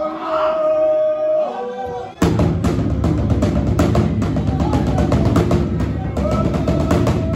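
A voice chanting one long held note, then about two seconds in, fast, dense hand drumming on large traditional drums starts abruptly, with voices singing over it.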